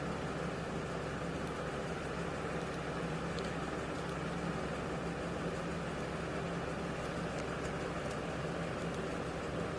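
Steady background hum and hiss with a low constant tone, and a few faint ticks scattered through it.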